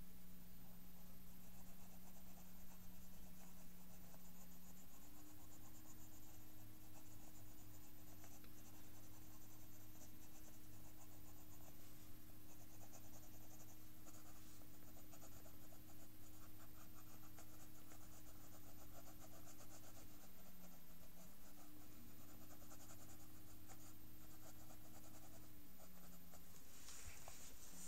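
Drawing pencil scratching and rubbing on paper in quick, repeated small strokes as shading is laid in. A steady low hum runs underneath and shifts pitch a few times.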